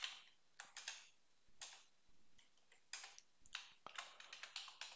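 Faint computer keyboard keystrokes, typed in short scattered clusters with pauses between them.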